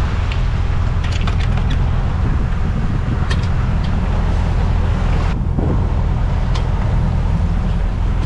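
Rushing bow wave and wind on the microphone over a steady low drone, with a few light metallic clicks from deck hardware being handled by hand.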